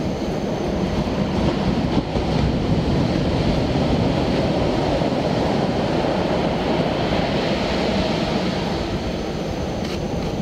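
Steady rushing noise of ocean surf breaking on the beach, with no distinct strokes or tones.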